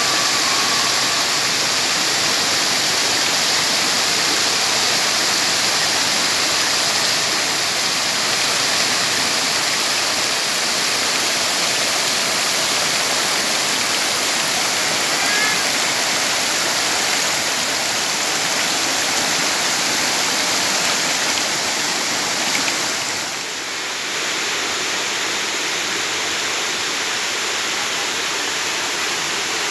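Waterfall pouring, a loud, steady rush of falling water that dips briefly about two-thirds of the way through, then settles a little quieter.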